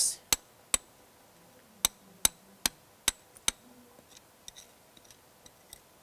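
Hammer blows on a chisel digging the test hole in compacted ground: about seven sharp strikes at roughly two to three a second, then fainter taps for the last two seconds.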